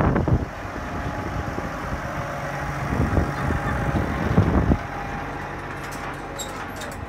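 A vehicle engine running steadily, louder from about three to five seconds in, then easing off.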